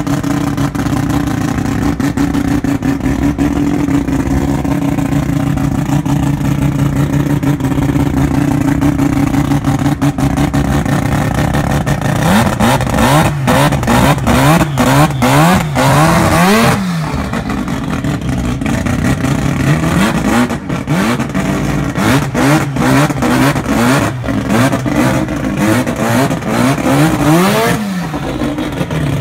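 Mazda RX-7's engine idling steadily, then revved again and again in quick blips, the pitch rising and falling, from about twelve seconds in.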